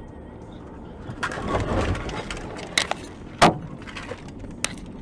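Car driving, with steady road noise inside the cabin. A rush of louder rumbling comes a little past a second in, followed by three sharp knocks, the loudest about three and a half seconds in.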